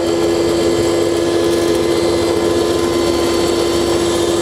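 Chhibber C-707 combined rice mill and pulverizer running at speed, grinding brick pieces into fine powder: a loud, steady hum with a constant rushing grind.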